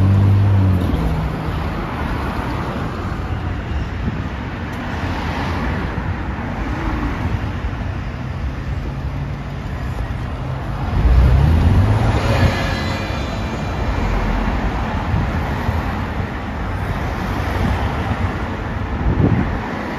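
Busy road traffic with London buses going by. A bus engine runs close by at the start, and about eleven seconds in another bus gets louder, its low engine note rising as it pulls away.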